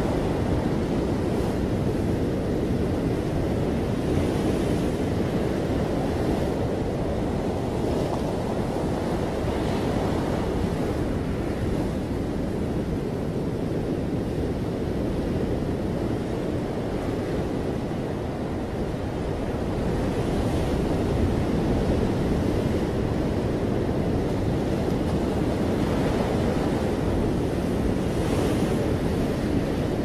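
Ocean surf breaking and washing onto a shore: a steady, low rush of waves, with a higher hiss swelling now and then.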